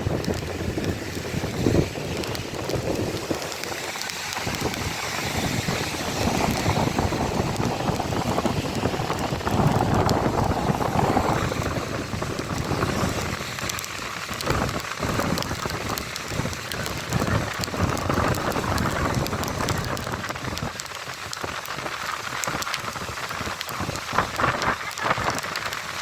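Heavy rain falling, a dense uneven hiss with scattered sharp clicks.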